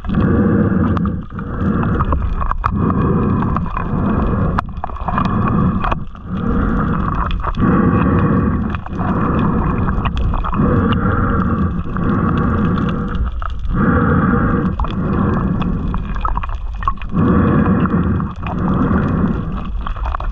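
Water gurgling and rushing around an underwater camera housing as a diver swims, in surges a little more than once a second.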